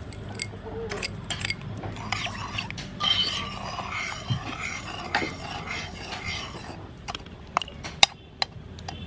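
A metal spoon stirring watery tamarind sauce in a black pot, swishing the liquid and clinking against the pot's sides. The clinks grow sharper and more spaced out near the end.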